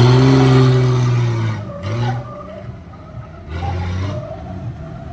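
A car engine revs hard for about a second and a half while its tyres skid with a broad hiss, then revs again briefly a little past halfway.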